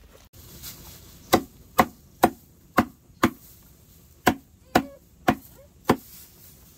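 Chopping with a blade: nine sharp strikes at about two a second, five, then a short pause, then four more.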